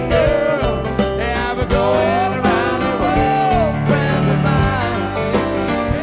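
Rock song with a steady beat, bass and guitar, and a gliding melody line that sounds like singing.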